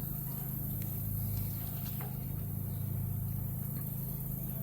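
Steady low mechanical hum, like a motor or engine running, with a few faint clicks.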